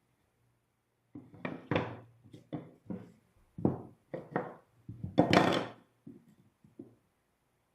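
Irregular wooden knocks and thunks, about a dozen, as cedar boards or bench parts are handled and knocked together, with the loudest, longest knock a little past five seconds in.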